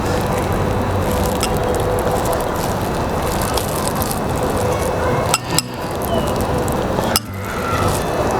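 A metal spoon scooping yogurt into a drinking glass, with a few sharp clinks against the glass in the second half, over a steady hiss.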